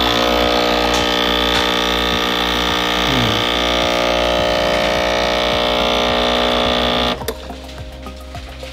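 Breville Barista Express espresso machine's vibratory pump buzzing steadily while pulling a double shot, then cutting off suddenly about seven seconds in as the shot ends. This is a first shot that the owner afterwards judges went wrong, which he puts down to too coarse a grind and too little coffee in the basket.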